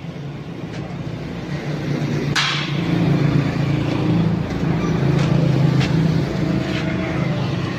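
A steady motor hum that grows louder in the middle and eases off near the end, with one sharp metallic knock about two seconds in and a few lighter clicks.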